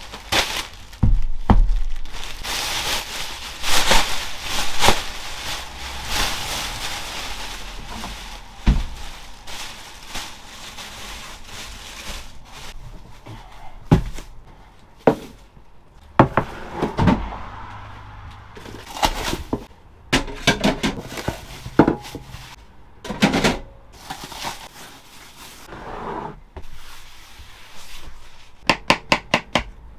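Food-prep handling sounds in a small van kitchen: scattered knocks and thuds, rustling, and near the end a quick run of knife chops on a cutting board.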